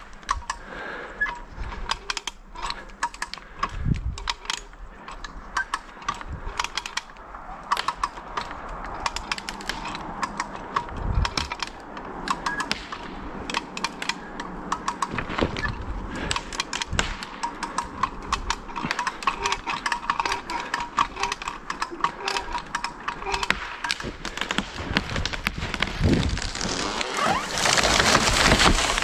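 A rope tackle being cranked tight by hand to pull over a tree, with many irregular clicks and knocks, while the worker breathes hard from the effort. Near the end comes a louder rushing swell as the tree goes over.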